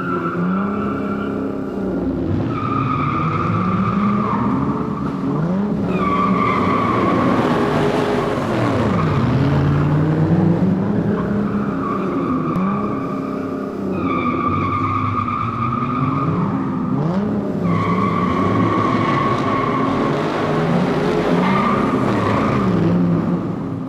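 Race car engines revving up and down while tyres squeal in long, repeated stretches of a few seconds each, several cars overlapping.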